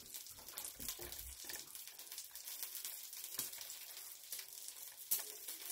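Wet cut tomato pieces being handled and shifted in a glass baking dish: irregular wet squishing with small clicks and taps, and a sharper knock about five seconds in.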